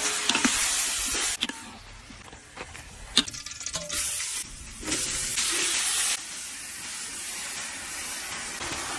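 Chicken frying in hot oil: a steady sizzling hiss that breaks off abruptly about a second and a half in, is quieter for a few seconds, then returns.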